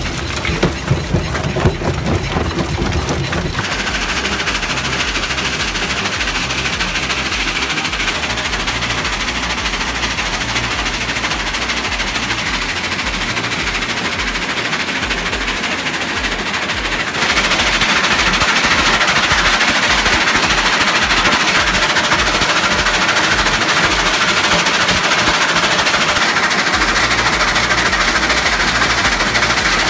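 Stone-crushing plant at work: rock being broken in a crusher and carried on conveyors, a dense, rapid clatter of stone over a low, pulsing machine rumble. It gets suddenly louder about halfway through.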